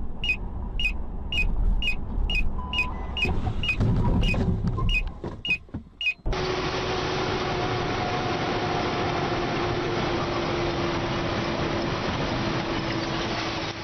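Inside a car's cabin: a turn-signal indicator ticks about twice a second over low engine and road rumble, with a loud low thud near the middle. It then cuts abruptly to a steady rush of tyre and wind noise at highway speed, with a faint steady hum.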